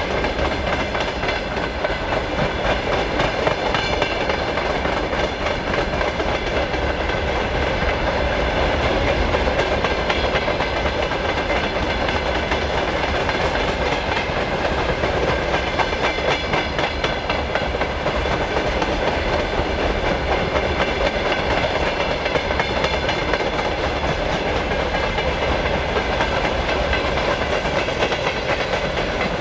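A long freight train's wagons rolling past steadily, wheels clicking over the rail joints.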